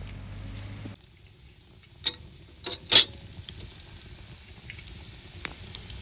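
Wood fire burning in a metal brazier, with a few sharp cracks and pops; the loudest comes about three seconds in. A steady low hum of outdoor background cuts off about a second in.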